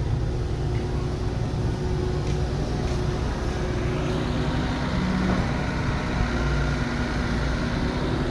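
Heavy diesel construction machinery engine running steadily, a low rumble with a faint steady hum over it.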